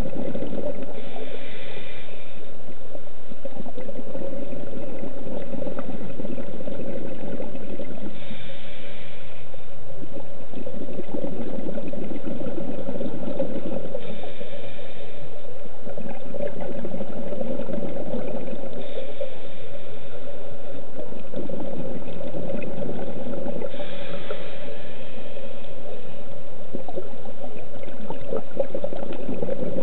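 Scuba diver breathing underwater through a regulator: rumbling bubbles of exhalation, broken about every five seconds by a short hissing inhalation, over a steady hum.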